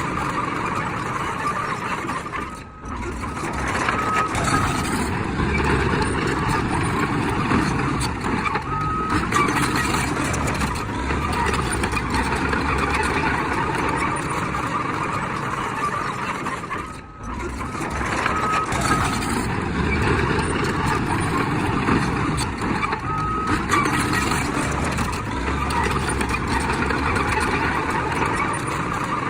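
Heavy diesel earthmoving machinery, a bulldozer at work, running loudly and steadily. A reversing alarm sounds short beeps in small groups several times as the machine backs up. The sound drops briefly twice.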